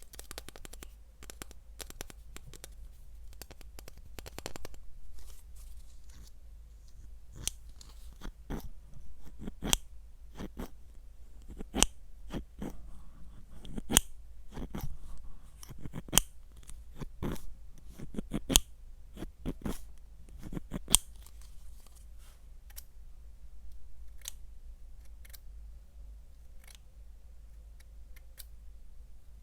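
A run of irregular sharp clicks and taps, thickest through the middle and thinning out near the end.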